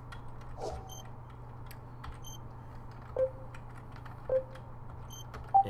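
Short pitched menu blips from the XBMC media-center interface as its settings menus are stepped through, three in the second half about a second apart, the last one higher and loudest. A few faint ticks and a steady low hum lie underneath.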